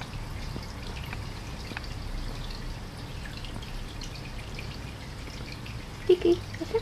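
Guinea pig nibbling a strand of hay: faint scattered small clicks over a steady low hum. About six seconds in, a couple of short, louder vocal sounds.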